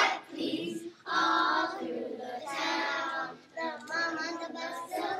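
Young children singing, the notes held and wavering, with brief breaths between phrases.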